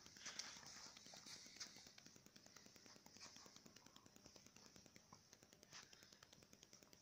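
Near silence: a faint steady hiss with light scattered clicks and taps.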